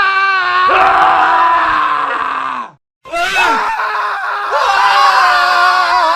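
Several men screaming at once in long, drawn-out screams. The first screams fall in pitch and cut off abruptly just under three seconds in, and after a brief silence another round of overlapping screaming starts.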